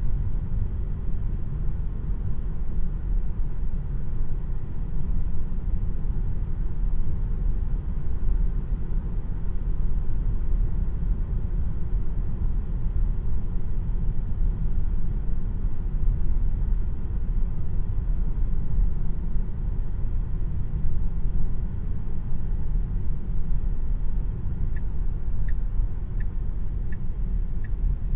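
Steady low road and tyre rumble inside the cabin of a 2026 Tesla Model 3 RWD, an electric car with no engine note. Near the end a turn signal starts ticking, about one and a half ticks a second.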